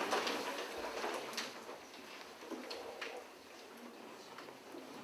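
Quiet room sound with scattered small ticks, taps and paper rustles from people writing and handling papers at desks, a little busier in the first second or two.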